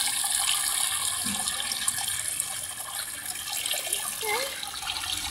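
Water running steadily in a small stream.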